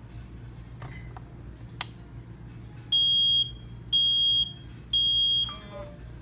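HST Bluetooth LE HomeKit smoke detector sounding its alarm: three loud, piercing high-pitched beeps, each about half a second long and a second apart, in the three-beep pattern of a smoke alarm.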